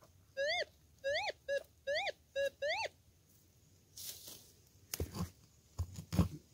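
Gold-prospecting metal detector giving six quick target tones, some rising and falling in pitch and some level, as the coil passes over buried metal. About four seconds in, a pick scrapes and then strikes the ground several times with dull thuds as the target is dug.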